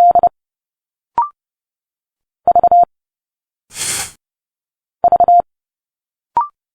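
Morse code characters keyed as a steady tone near 700 Hz at 30 words per minute: three short groups of quick dits and dahs, about two and a half seconds apart. About four seconds in, a voice gives a hissed consonant sound, and there are two very brief rising beeps, about a second in and near the end.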